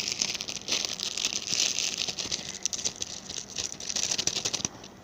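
Plastic packaging crinkling and crackling in quick, dense rustles as a squishy toy is worked out of its bag by hand, stopping just before the end.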